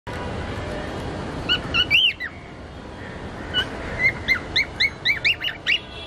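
Cockatiels chirping over steady background noise. A few calls come about one and a half seconds in and a louder arching call follows at two seconds. Then a quick run of short rising-and-falling chirps, about four a second, fills the last two seconds.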